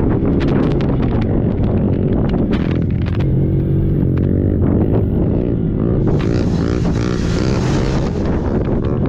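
Small 90cc modified youth quad engine running hard, its revs rising and falling, with scattered sharp knocks. Wind buffets the microphone for a couple of seconds around six to eight seconds in.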